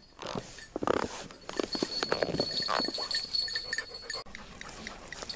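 Lightweight camp cot creaking and its fabric rustling as a person shifts his weight on it, a run of irregular clicks and short squeaky creaks.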